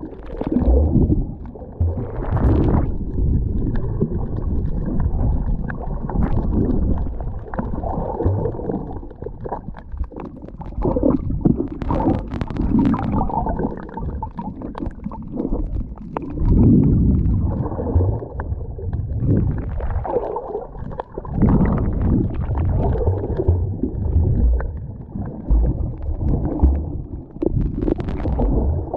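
Muffled underwater rumbling and gurgling of water on a submerged camera's microphone, rising and falling unevenly, with a few brief sharper noises.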